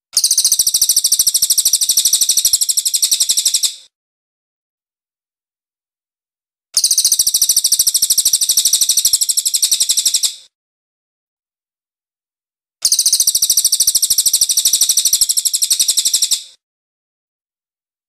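Crested jay (cililin) calling: three bursts of a fast, even, high-pitched rattle, each about three and a half seconds long, with about three seconds of silence between them.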